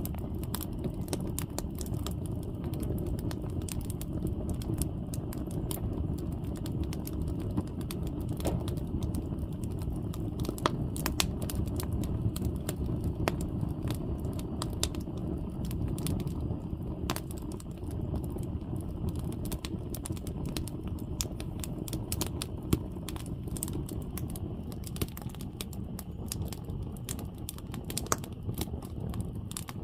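Wood campfire burning: a steady low rush of flames with irregular sharp crackles and pops from the burning firewood.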